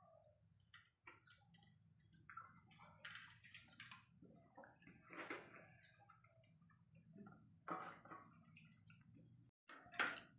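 Faint, wet squishing of rice and curry being mixed and eaten by hand from steel plates, with scattered short clicks at irregular moments.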